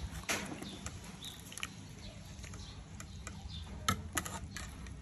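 Metal ladle clinking and scraping against an aluminium soup pot as stew is ladled out: scattered light clicks and knocks, the sharpest a little before and after four seconds in.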